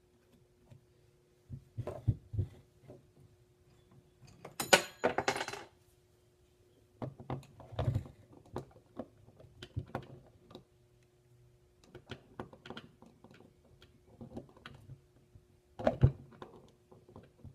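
Hand-handling noise from a Rivet King RK-50SP rivnut tool: scattered clicks and knocks of metal parts, with a ringing metallic clatter about five seconds in and a sharp knock near the end, over a faint steady hum.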